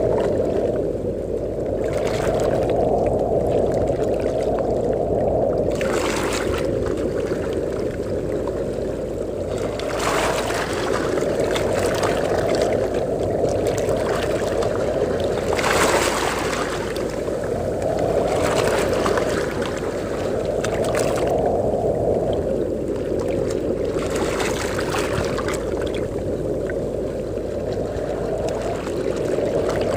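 Ocean surf at a beach: waves breaking and washing up in hissing surges every few seconds over a steady, swelling rush of wind.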